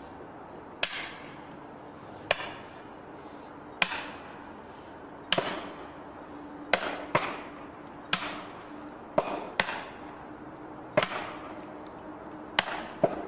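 Hammer blows driving felling wedges into the back cut of a large standing tree, to tip it over. Sharp, ringing strikes come about every second and a half, a dozen or so, some close together in pairs.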